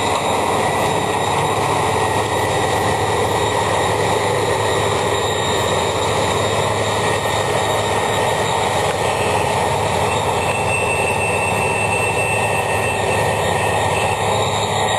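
New Holland CX840 combine harvester running steadily at work, a loud even drone with a fixed high whine over it.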